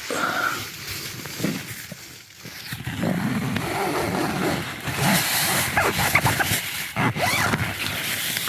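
A tent door zipper being pulled open, with nylon tent fabric rustling and scraping as the door is pushed aside.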